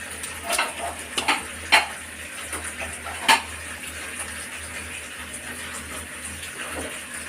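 Kitchen utensils and cookware clinking and scraping as food is handled. There are a few sharp clinks in the first half, then only light handling noise over a steady hiss.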